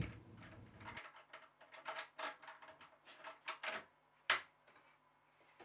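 Faint taps and light knocks from handling a removable wooden cabinet panel, ending in one sharp click about four seconds in.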